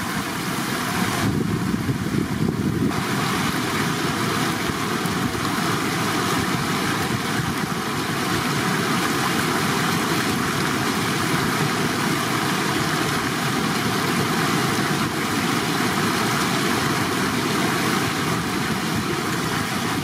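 Shallow water rushing steadily over a paved crossing, a loud, even rushing noise.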